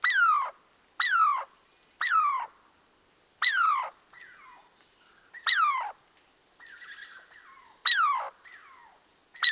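An animal calling repeatedly: about six short calls, each sliding steeply down in pitch, spaced roughly a second apart with silent gaps.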